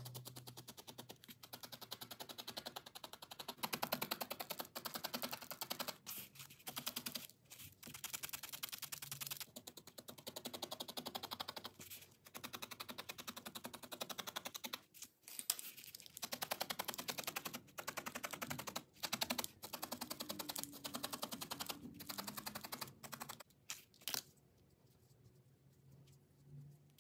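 Felting needle stabbing rapidly and repeatedly through wool into a foam pad: a fast run of crisp pokes broken by short pauses. The poking stops near the end.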